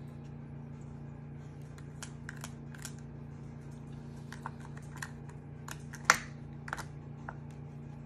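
Irregular clicks and clacks of hard plastic as a Yorkshire terrier puppy noses at the lids and covers of a Spot Seek-A-Treat dog puzzle feeder, with one sharp clack about six seconds in. A steady low hum runs underneath.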